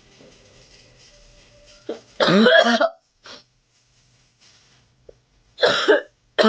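A woman coughing hard from cigarette smoke catching in her throat. The coughs come in loud bouts about two seconds in and again near the end.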